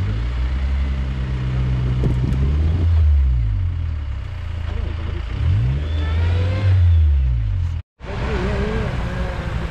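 Off-road vehicle engine revving under load, its pitch rising and falling twice. Near the end the sound drops out for a moment and then comes back as a steadier engine sound.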